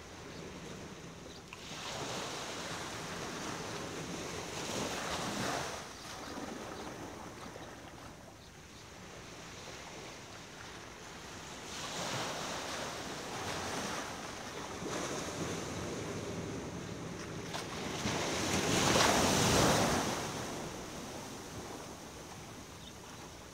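Ocean surf: waves breaking and washing up in slow surges that swell and fade every several seconds. The loudest surge comes about three-quarters of the way through.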